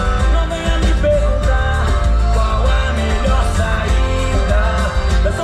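Portuguese-language pop song playing: a sung melody over heavy bass and band backing.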